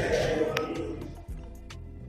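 Background music with a steady beat. Voices or chatter fade out in the first half second.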